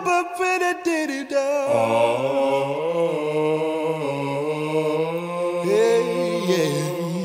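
Outro music: a chant-like vocal line of long, wavering held notes over a steady low drone, with a few sharp clicks about a second in.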